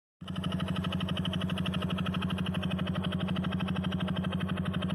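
Honda Biz's single-cylinder four-stroke engine idling with an even, rapid beat and a strange knocking noise, which the owner fears is a worn connecting rod or the clutch drum.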